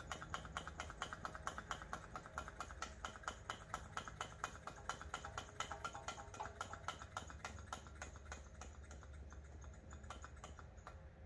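Vacuum brake bleeder pump drawing brake fluid out of a freshly fitted front caliper through a short hose on the bleed screw, with rapid, even clicking about six times a second that fades toward the end.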